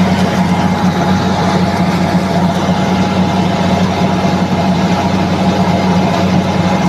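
NG 25D combined rice milling machine running steadily: a constant low drone over a steady whirring, rushing noise.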